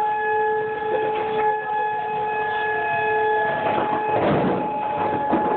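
Tornado warning siren sounding a steady, two-note tone. The lower note drops away about three and a half seconds in, and a rush of noise passes over the sound around four seconds in.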